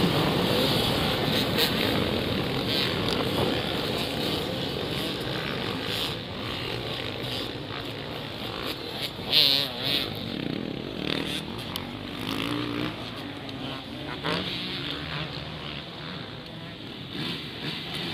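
A pack of motocross dirt bikes racing, their engines blending into a dense mixed drone that slowly fades as they pull away. A brief loud bump comes about halfway through.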